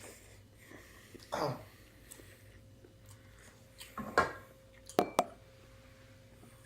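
A spoon clinking twice in quick succession against a dish, the clinks ringing briefly, after a short 'oh' and a cough-like vocal sound from someone eating.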